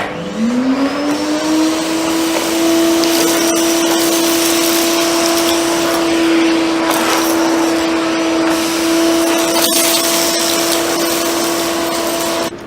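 Philips PowerLife 2000 W bagged vacuum cleaner switched on, its motor whine rising as it spins up over about a second, then running steadily at its lowest power setting while vacuuming a rug; it stops near the end.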